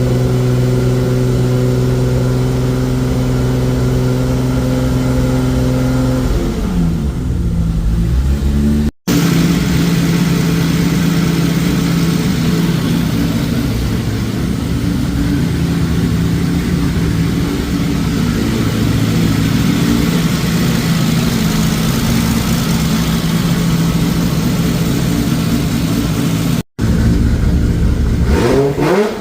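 Freshly rebuilt Toyota 2JZ turbocharged inline-six running at a steady held speed during break-in; its revs drop about six seconds in. After a cut it runs steadily again, and near the end it is revved up and let fall.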